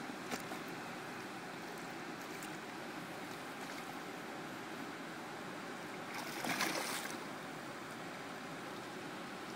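Steady rush of river water, with a hooked salmon splashing and thrashing at the surface near the bank, loudest in one burst about six seconds in.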